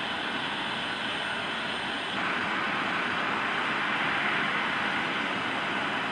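Jet engines of a taxiing airliner: a steady whooshing hiss that gets louder about two seconds in.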